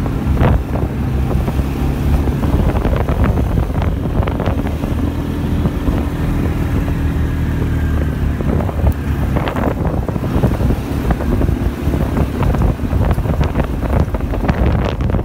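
ATV engine running steadily while riding a gravel road, with heavy wind buffeting on the microphone and scattered knocks from stones and bumps under the tyres.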